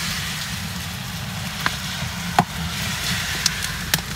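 Steady rain hiss with a low rumble underneath, and a few short sharp snaps and clicks in the second half as a hand digs in potting soil and breaks off ginger rhizomes.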